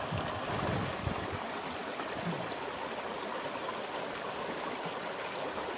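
River water rushing over rocks in a fast current, a steady, even rush with no break. A low rumble runs under it in about the first second.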